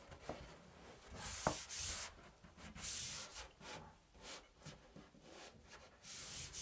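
A hand rubbing Wallrock thermal liner flat against the wall along a butt joint, heard as a dry, hissy swish in several strokes. A sharp click comes about one and a half seconds in.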